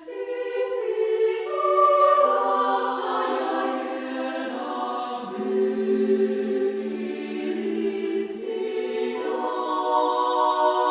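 Intro music: sustained choir-like voices holding long chords that shift every few seconds.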